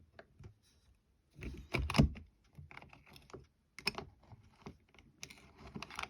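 Metallic clicks and knocks of an old Milner's lever safe lock being worked with its key, with a heavier clunk about two seconds in.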